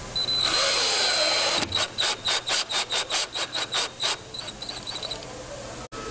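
Cordless power drill driving screws: a high motor whine for about a second and a half, then about ten short trigger bursts at roughly four a second, then a few brief blips.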